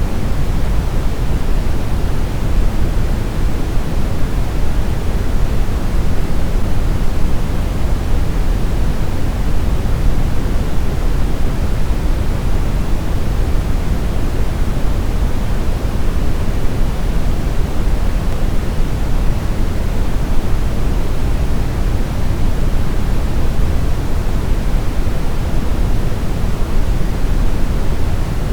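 Smoothed brown noise: a steady, deep, rumbling hiss, strongest in the low end and thinning toward the treble, unchanging throughout.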